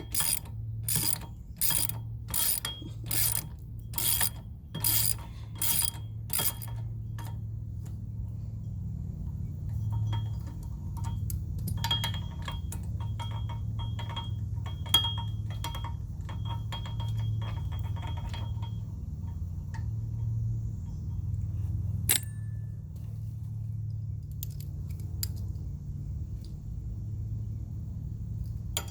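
Socket ratchet wrench clicking in steady back-and-forth strokes, about two a second, as a hub assembly mounting bolt is backed out. The ratcheting then goes on fainter and quicker, over a steady low hum.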